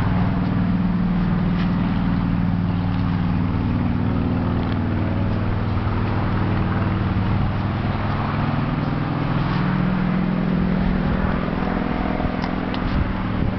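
A steady low drone from a running motor, its pitch wavering slightly, with a few faint ticks near the end.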